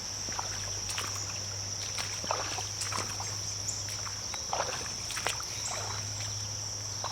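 Steady, high-pitched chorus of crickets or katydids, with scattered soft rustles and snaps of movement through brush.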